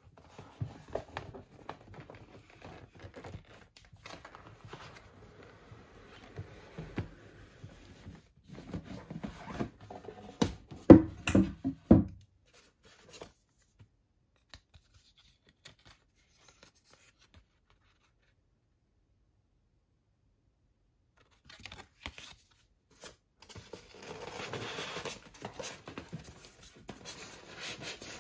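Cardboard and polystyrene packaging being handled during an unboxing: the box scrapes and rustles, with a few louder knocks about eleven seconds in. After several silent seconds, a polystyrene packing block rubs and scrapes against the box as it is lifted out.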